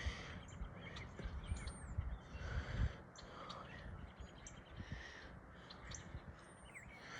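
Faint outdoor ambience of birds calling, with short chirps and a few softer calls scattered through. Under them is an uneven low rumble with a few soft knocks, loudest about two to three seconds in.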